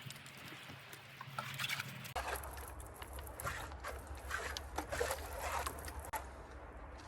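Irregular knocks, clicks and small splashes of water drum cleaning with a hand pressure sprayer.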